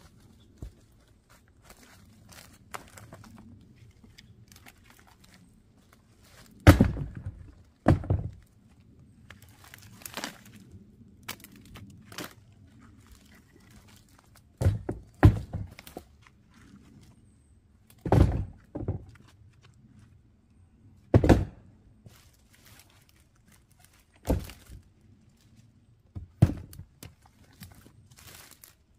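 Sawn firewood rounds dropped one at a time into a plastic wheelbarrow tub: about a dozen heavy thunks a few seconds apart, some coming in quick pairs.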